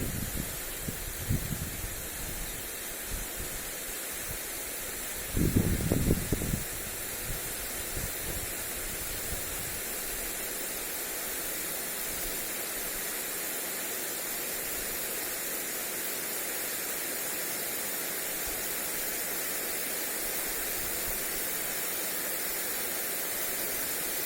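Lawn sprinkler spraying water onto grass, a steady hiss. Wind buffets the microphone in low gusts during the first several seconds, strongest about five to seven seconds in.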